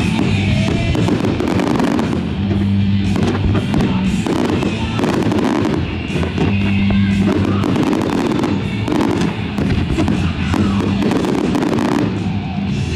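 Fireworks going off to a music soundtrack: many sharp bangs and crackles over music with a steady bass line.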